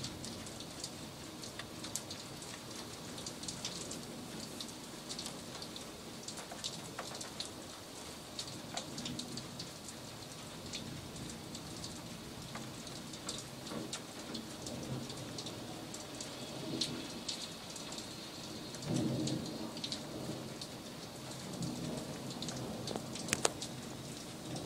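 Steady rain falling, with many close drops tapping on hard surfaces. A low roll of thunder rumbles up about three-quarters of the way through, loudest for a couple of seconds, then rumbles once more more faintly.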